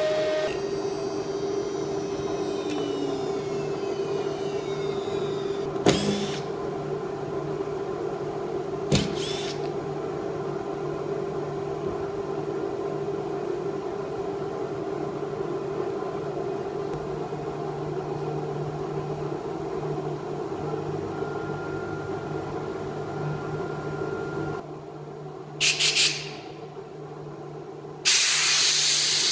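Steady hum of CNC router workshop machinery, with a whine falling away in the first few seconds as the spindle spins down and two knocks as the machined panel is handled. The hum shuts off about 25 seconds in, followed by a couple of short blasts and then a long loud hiss of a compressed-air blow gun near the end.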